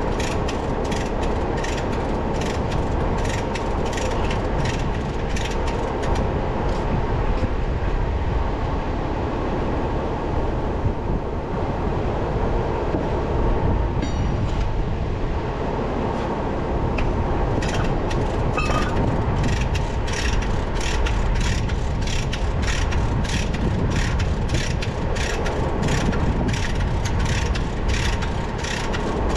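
Heavy machinery running with a steady low rumble and a regular metallic clanking about three times a second. The clanking stops for several seconds in the middle and then starts again.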